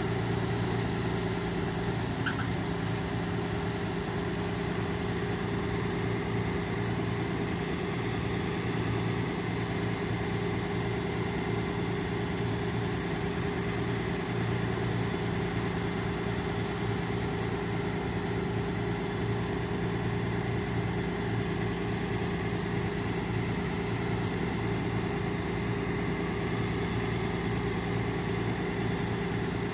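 Ford F-750 Super Duty truck's engine running at a steady idle.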